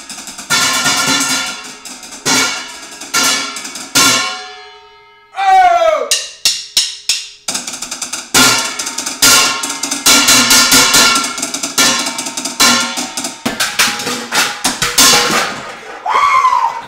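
Drumsticks banging on kitchen pots and surfaces in fast runs of hits, each run ringing on between strikes. There is a short pause about four seconds in.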